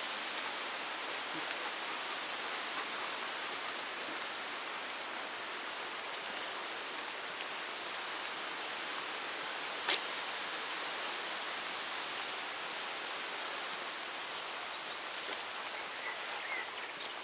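Steady rushing of stormy wind through trees and foliage, with one short click about ten seconds in.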